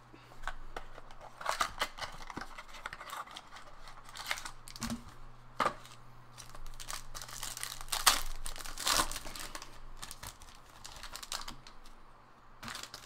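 Foil wrapper of a trading-card pack crinkling and tearing as it is opened by hand: irregular rustles with several sharper rips.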